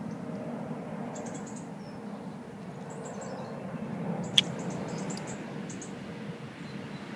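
Outdoor background noise with small birds chirping high and thin in quick runs of notes throughout, and a single sharp click a little over four seconds in.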